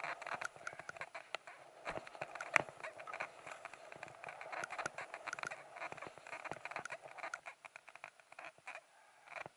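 Skis running over snow, with a continuous scraping hiss and irregular crunching clicks, and one sharper knock about two and a half seconds in.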